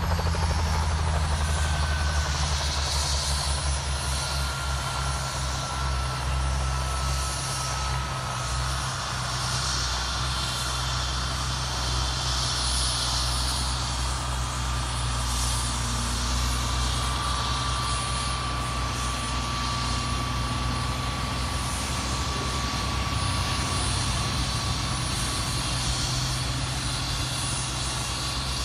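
Crop-dusting helicopter's engine and rotor running steadily, a low pulsing rumble with a faint high whine.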